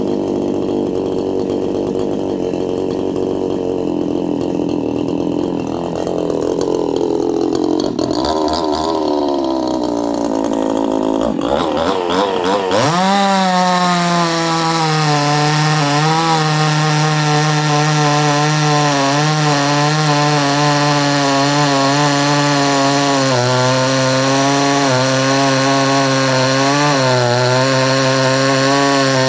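Two-stroke 62cc Chinese chainsaw idling, then revving up, and from about 12 seconds in running flat out through a log cut, with its revs dipping briefly a couple of times under load.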